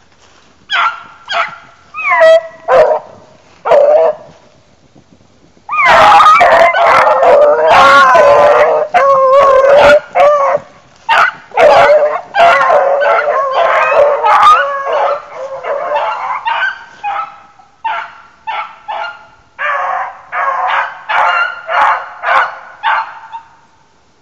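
A pack of beagles baying while running a swamp rabbit's trail. A few separate yelps come first, then about six seconds in the whole pack opens up together in an overlapping chorus, which thins to single barks near the end.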